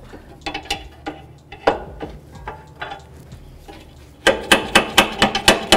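Steel pry bar and sway bar link clinking against the front suspension as the link's freed stud is levered out of its mount, with scattered light clicks and then a fast run of sharp metal clanks near the end.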